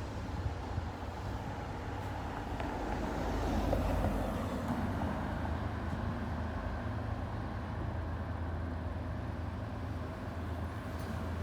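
Diesel engine of a Nissan Diesel bus with a Fuji Heavy Industries 8E body running on the road, a steady low rumble that swells louder about four seconds in.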